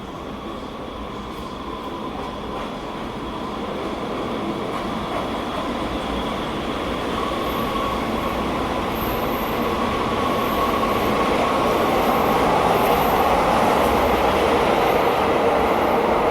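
A train running, its rumble growing steadily louder through the whole stretch, with a thin steady whine over it.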